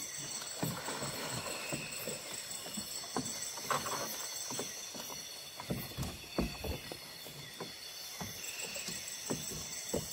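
Irregular knocks and bumps against a small boat's hull, over a steady high chirring of night insects.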